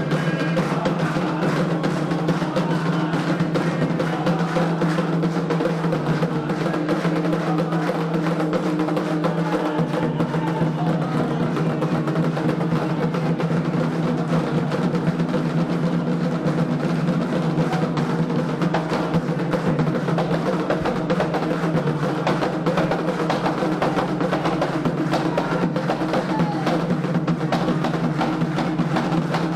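Candomblé ceremonial drumming: atabaque hand drums playing a fast, continuous rhythm.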